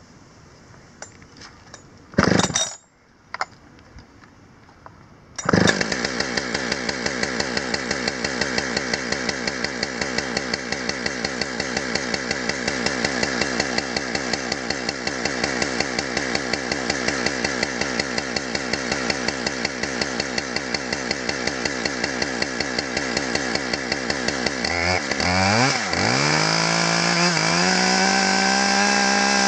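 Husqvarna 565 two-stroke chainsaw being pull-started: a pull on the starter cord about two seconds in, then it fires at about five seconds and idles with an even pulsing beat. Near the end the engine speed dips and then rises to a steady, higher, louder run. It is being started after more than a year unused.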